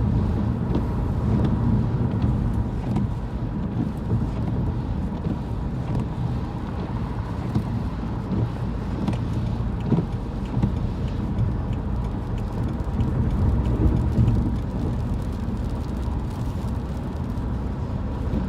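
Inside a moving car: a steady low rumble of road and engine noise, swelling and easing as gusty storm winds hit the side of the car.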